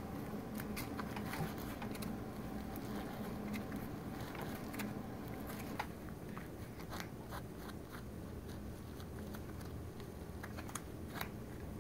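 Faint crackling and rustling of latex-palmed work gloves plucking and rubbing feathers and down off a duck's skin: scattered small clicks over a low steady hum.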